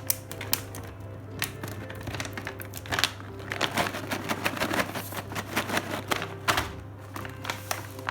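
Dry-fruit gift-pack packaging being handled by hand, with irregular sharp clicks and a busy stretch of crinkling and rustling in the middle. A soft background music bed runs underneath.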